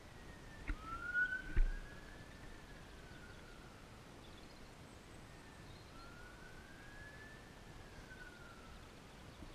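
A siren wailing, its pitch slowly rising and falling twice. Two short thumps come about a second in, the second one louder.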